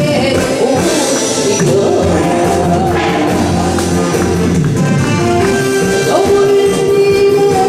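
A woman singing a Korean popular song live into a handheld microphone, amplified through the hall's sound system, over instrumental accompaniment.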